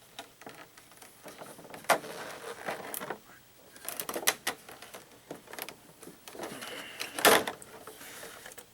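Cardboard and plastic packaging being handled as parts are taken out of a box: rustling and scraping broken by irregular sharp clicks and knocks, the loudest about two seconds in and again near the end.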